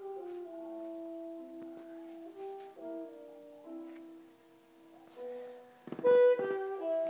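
Slow instrumental music from a radio: a saxophone playing long held notes over piano, with a louder note about six seconds in.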